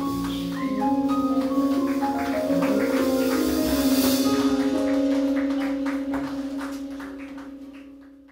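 Live jazz quartet of keyboard, saxophone, upright bass and drums holding the closing chord of the tune: a long wavering note over sustained keyboard chords, with a cymbal swell that peaks about halfway. The whole band fades out near the end.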